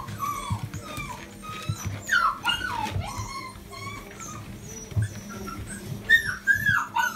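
Young puppies whining and whimpering: short high cries that rise and fall, coming in quick runs about two seconds in and again near the end, over soft low thumps.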